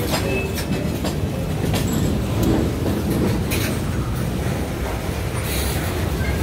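Freight train's covered hopper cars rolling past: a steady low rumble with irregular clicks and knocks from the wheels over the rail joints, and a few brief faint wheel squeals.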